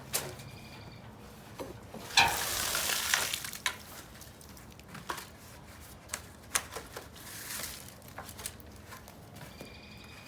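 Water spraying from a hose to flush out a clogged gutter, in bursts, loudest about two seconds in, with scattered sharp clicks and knocks.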